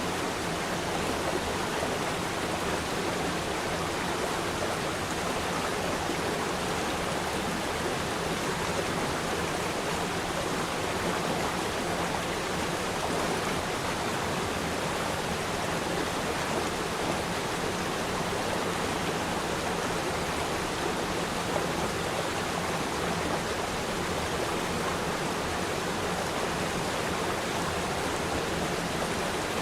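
Waterfall: water falling and rushing in a steady, even roar of white noise with no breaks.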